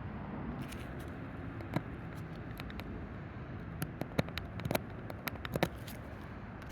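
Steady low background noise with scattered small, sharp clicks and taps, about a dozen of them bunched between two and six seconds in.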